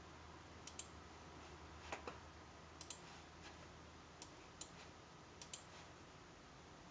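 Faint computer mouse clicks, a dozen or so spread out, some in quick pairs, over a faint steady low hum.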